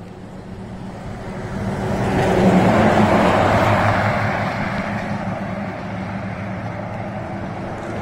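Long multi-trailer tanker truck passing close by on the highway: its engine drone and tyre rush build to a peak about three seconds in, then fade slowly as it drives away.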